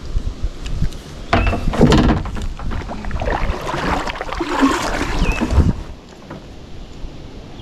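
Knocking and rustling of handling inside a kayak, louder and busier from about a second in to nearly six seconds in.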